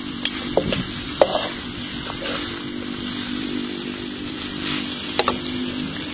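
Noodles sizzling in a hot pan as a metal spatula stirs and tosses them, with a few sharp clinks of the spatula against the pan, mostly in the first second or so and once more near the end. A steady low hum runs underneath.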